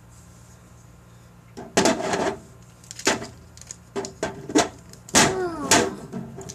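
Plastic wrestling action figures handled and knocked against a toy ring: a few short sharp clacks after the first two seconds. Mixed with these are short vocal sound effects, one near the end falling in pitch.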